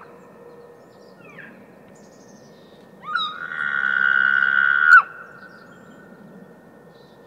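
Bull elk bugling in the rut. About three seconds in, one call climbs steeply into a high whistle, holds for about two seconds, then breaks off with a sharp drop.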